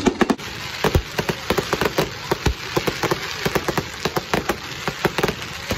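Aerial fireworks going off: dense, rapid crackling pops from gold crackle bursts, several a second, with a couple of deeper booms about a second and two and a half seconds in.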